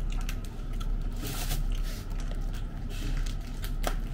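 Fried chicken being torn apart by hand and chewed, with small scattered crackles of the crisp coating over a steady low background hum.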